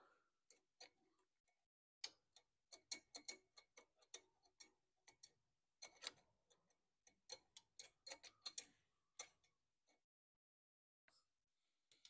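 Faint, irregular metallic clicks and ticks, many in quick succession, as a bolt and small parts are fitted by hand on a push mower's engine; they pause briefly near the end and then resume for a few more.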